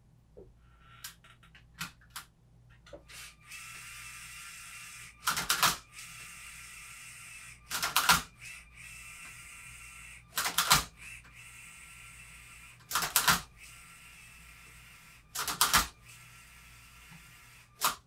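LEGO MINDSTORMS Robot Inventor MindCuber-RI robot working a Rubik's Cube. Its motors whirr steadily, broken about every two and a half seconds by six loud, brief clatters of plastic mechanism as it handles the cube. Faint clicks come first as the cube is set in place.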